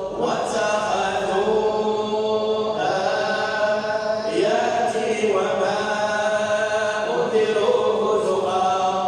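Quran being recited in a melodic chant, with long held notes in phrases a few seconds long.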